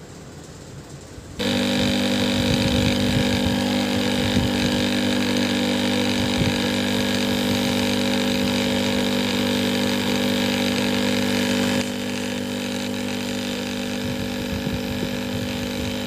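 Cut-open hermetic refrigerator compressor running on test after a repair for lost compression: a steady, loud electric hum that comes in abruptly about a second in. It turns somewhat quieter at about twelve seconds.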